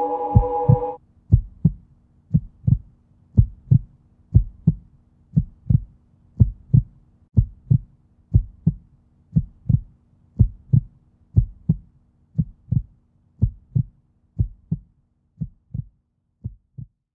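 Slow heartbeat-like double thump, a low paired beat about once a second over a faint steady hum. A held musical chord cuts off about a second in, and the thumps thin out and stop just before the end.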